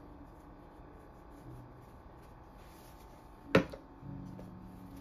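A plastic seasoning shaker is shaken lightly over raw ribeye steaks, then set down with a single sharp knock about three and a half seconds in.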